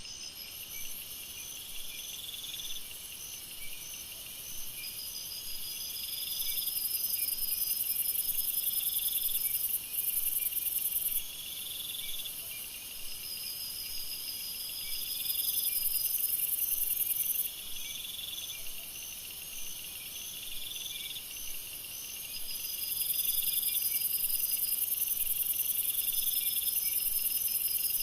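Night jungle chorus of crickets and other insects: several overlapping high-pitched calls at once, a steady pulsed chirping, trills that come in bouts of a few seconds, a call that swells about every two seconds, and a very high buzz that rises in long stretches and drops away again.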